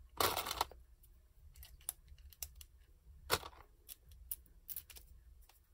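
Small clicks and taps of plastic pen parts being handled and fitted back together as a pen is reassembled, with a louder scrape near the start and a sharper click a little past halfway.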